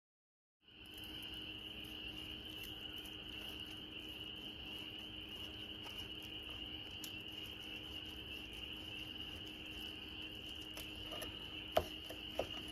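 Steady night chorus of crickets, cutting in about half a second in and running on evenly. A couple of short light clicks near the end, from the knife and tongs working the roast on the cutting board.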